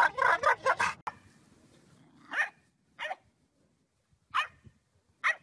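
A black dog making a rapid, warbling, gobble-like vocalisation that cuts off suddenly about a second in. Then a dog gives four short barks, spaced roughly a second apart.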